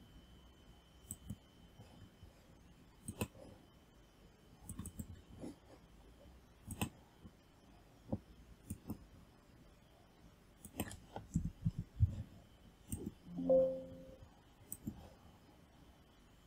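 Computer mouse clicking: scattered single clicks, a few in quick pairs, with quiet between. About three-quarters of the way through there is a brief low hum, the loudest sound.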